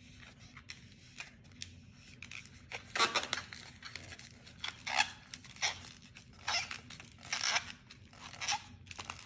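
Latex modelling balloon squeaking and rubbing in the hands as it is twisted into a balloon dog, in a string of short, irregular squeaks that start about three seconds in.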